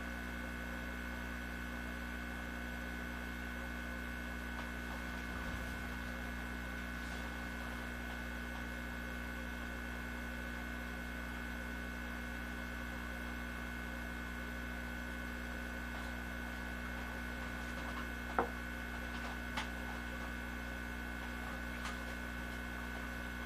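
Steady electrical hum made of several unchanging tones, with a few short clicks in the last few seconds.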